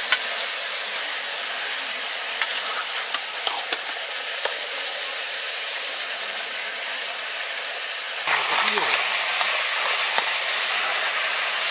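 Diced buffalo meat sizzling in a metal wok over a wood fire, stirred with a metal spatula that clicks and scrapes against the pan now and then. The sizzle grows louder for the last few seconds.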